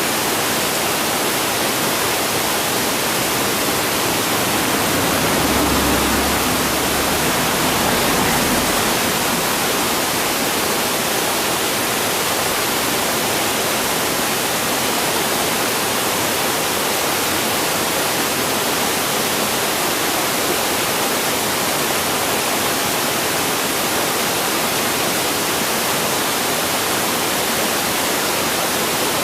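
Steady rushing of flowing river water, with a brief low rumble and slight swell about five seconds in.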